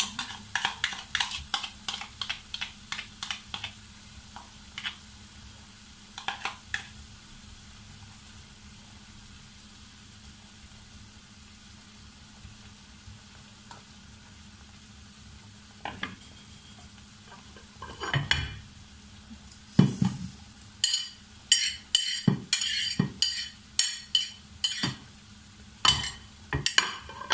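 Pork slices frying in a nonstick pan with a quiet steady sizzle, broken by quick taps of utensils against the pan early on. From about 18 seconds in comes a series of loud sharp clinks of a metal spoon and chopsticks against the pan and a ceramic plate.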